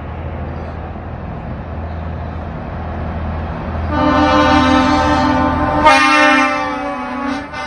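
A vehicle engine running with a steady low hum, then a loud horn blast from about four seconds in that changes tone about six seconds in and cuts off near the end.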